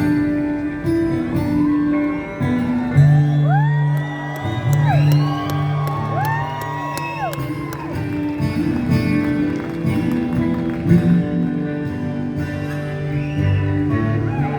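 A rock band playing live in a large hall, with strummed acoustic guitar over a bass line. Twice a long high note slides up, holds, and slides back down.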